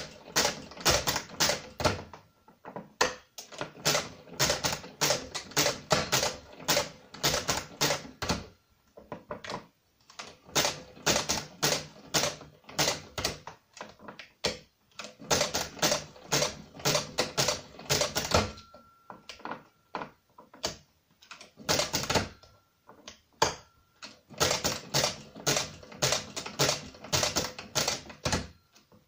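Brunsviga pinwheel mechanical calculator being cranked by hand: runs of rapid mechanical clicking and clatter from the crank and gearwork, several clicks a second, broken by short pauses as the calculation is worked through.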